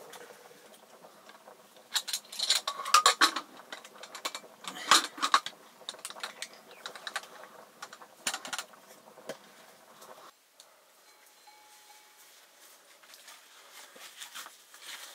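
Metal cookware clinking and knocking in a dense run of sharp strikes, loudest a few seconds in, stopping abruptly about ten seconds in and leaving a quieter stretch.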